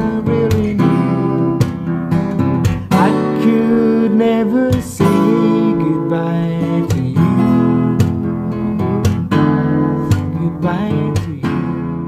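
Music: acoustic guitar strumming and picking a song.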